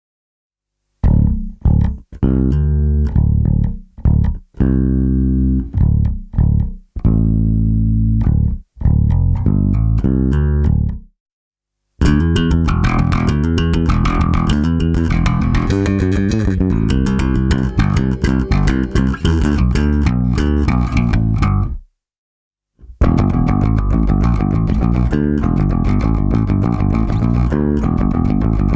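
Warwick Corvette six-string bass with Seymour Duncan Basslines humbuckers, played in passive mode with both pickups and a flat EQ. It starts about a second in with separate notes and short phrases broken by pauses, then after a brief break moves into a busier passage of quick notes with sharp attacks, and after a second short pause that passage continues.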